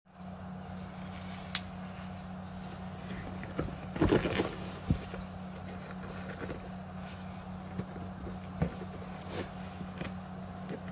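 Glossy black rubber boots being handled, the rubber shafts flexing and rubbing with a few light knocks, loudest in a short cluster of rubbing sounds about four seconds in. A steady low hum lies underneath.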